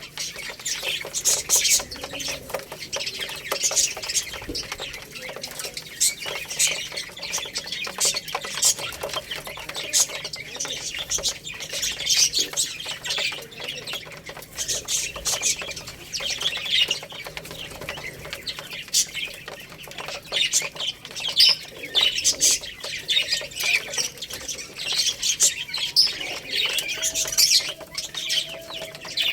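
A group of domestic chicks peeping continuously, many short high chirps overlapping.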